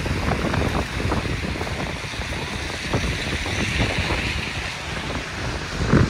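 Wind rushing and buffeting over the microphone in a snowstorm, a dense steady hiss broken by frequent irregular low thumps, the loudest just before the end.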